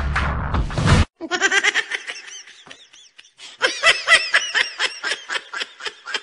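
Music for about the first second, cut off suddenly, then high-pitched laughter in quick repeated peals that grows louder about three and a half seconds in.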